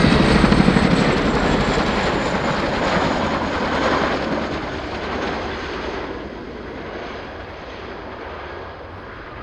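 RAF Boeing Chinook HC.6 tandem-rotor helicopter flying a display pass. Loud rotor blade slap at first, then the rotor and turbine noise fades steadily as the helicopter moves away, with a faint high turbine whine slowly dropping in pitch.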